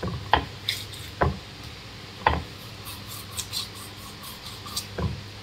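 A blunt kitchen knife scoring a river fish: four sharp knocks spread unevenly, with faint scraping and rubbing of the blade through scales and flesh in between.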